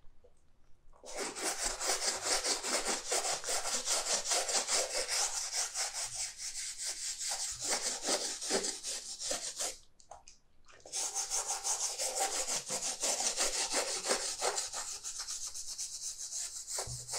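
Soft-bristled brush scrubbing the leather upper of a painted sneaker with soapy water, in quick back-and-forth strokes. It starts about a second in, stops for about a second near the middle, then carries on.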